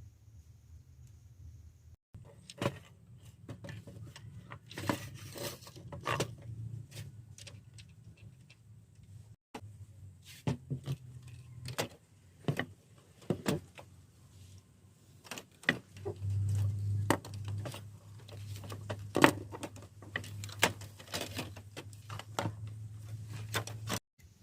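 Irregular clicks, clinks and knocks of small metal parts and tools being handled during work on an old radio, with a steady low hum in the second half.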